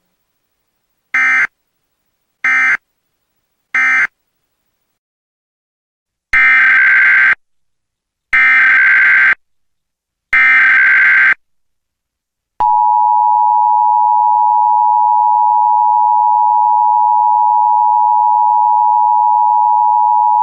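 Emergency Alert System tones: three short bursts of buzzy data tone (the SAME end-of-message code), then, after a pause of about two seconds, three longer data bursts of about a second each (the SAME header of the next alert), followed by the two-tone attention signal, held steady for about eight seconds.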